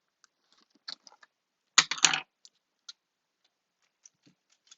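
Scattered light clicks and taps of craft pieces being handled on a tabletop, with a short, louder clatter about two seconds in.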